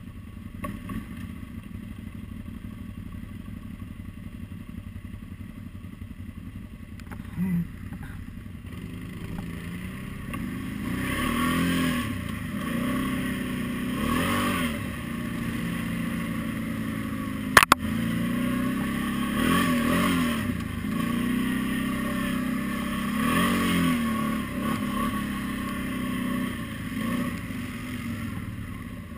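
Quadzilla X8 quad's V-twin engine idling, then pulling away about ten seconds in and riding on, its revs rising and falling as the rider opens and eases the throttle. A single sharp knock a little past halfway.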